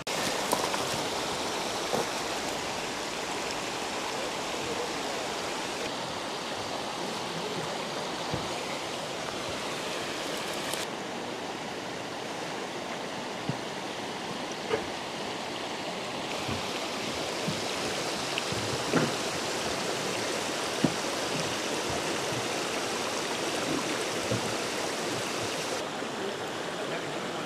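Steady rushing noise like running water, with a few faint ticks scattered through it.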